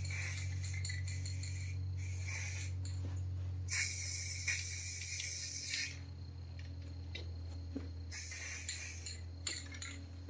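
Steady low hum with two bursts of hissing, one about two seconds long a little after a third of the way in and a shorter one of about a second near the end, plus a few faint ticks.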